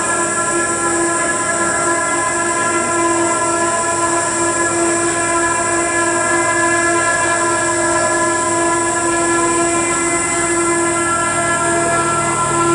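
Experimental live electronic drone from a small mixer and electronics: a loud sustained chord of many steady tones over a layer of hiss, with a lower tone coming in near the end.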